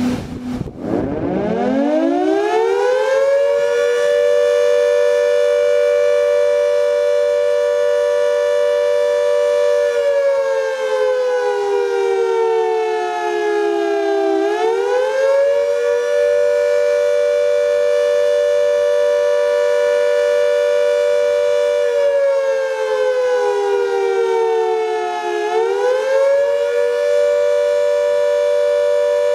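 Industrial air raid siren winding up from a low pitch to a steady wail within about three seconds and holding it. Twice its pitch sags slowly for about four seconds, then it quickly winds back up to the steady wail.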